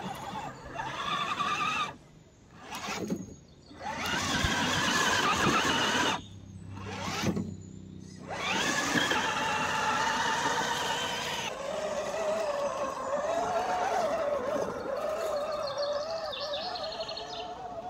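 Electric motor and gear drive of an RGT Intruder RC trail truck whining, the pitch wavering up and down with the throttle. It drops away twice as the truck pauses.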